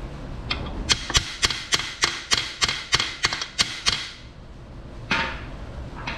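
A small hammer tapping on the welded-up clutch fork pivot boss of a Ford manual transmission bellhousing: about a dozen sharp metal taps, evenly spaced at about three a second, ending about four seconds in, followed by a couple of softer knocks.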